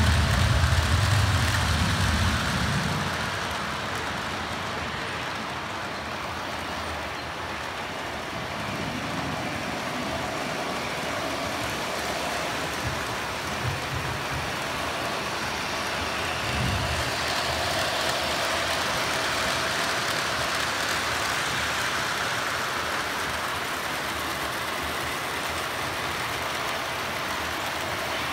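Model trains rolling on the track of a layout, with a louder low rumble in the first two to three seconds as a train passes close by, then a steady rolling hum.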